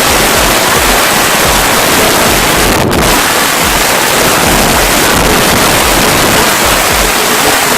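Loud wind noise on the microphone from driving: a steady, even rush of air that covers everything else, with a brief dip about three seconds in.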